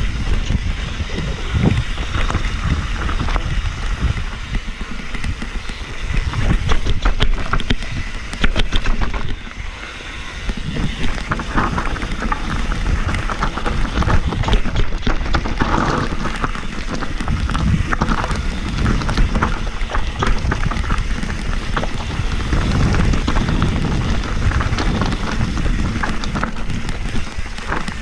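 Mountain bike riding fast down a dirt and gravel downhill trail: wind rushing over the microphone, tyres rumbling over the ground, and constant rattling and small knocks from the bike over the rough surface, easing briefly about ten seconds in.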